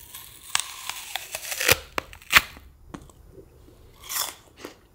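Biting into a large, cold Honeycrisp apple: the crisp flesh crackles and tears, then snaps off with two sharp cracks. About four seconds in comes another crunchy bite or chew.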